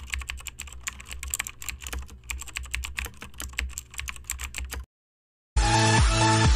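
Computer keyboard typing sound effect: rapid, irregular key clicks that stop abruptly about five seconds in. After a brief silence, electronic dance music with a steady beat starts near the end.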